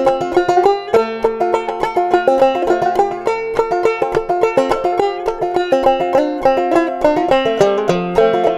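Solo clawhammer banjo playing a lively old-time fiddle tune, quick plucked notes over a ringing drone string. The instrument is an 1897 Lyon & Healy model 130 banjo strung with nylon strings and tuned in open G about a whole tone low, which softens and darkens its tone.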